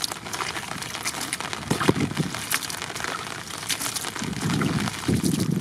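Live fish flapping and splashing in a little water in a plastic bucket: irregular wet slaps and patters. A low rumble sets in near the end.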